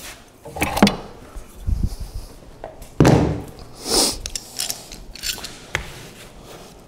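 Several knocks and clatters of hand tools being picked up and handled, with footsteps on a concrete shop floor; the loudest knock comes about three seconds in.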